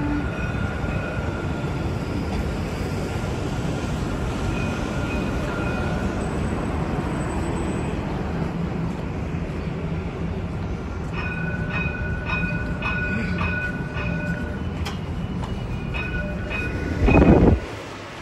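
Electric tram running along its track: a steady low rumble with a faint high steady tone over it. In the second half comes a run of sharp ticks, and near the end a short loud burst that cuts off suddenly.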